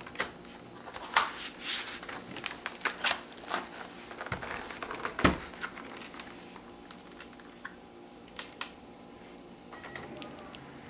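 Plastic clicks and knocks of a laptop being handled while its battery is put back into the bay. The clicks come in a quick run at first, and there is one heavier knock about five seconds in.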